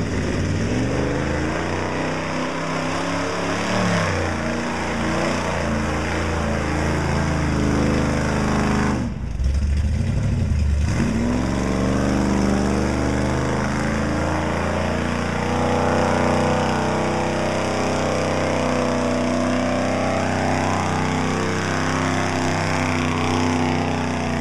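Lifted pickup truck's engine revving hard as it churns through a deep mud hole on big tires, its pitch rising and falling with the throttle over the hiss of mud and water thrown up. About nine seconds in the sound briefly goes dull and deep for a couple of seconds.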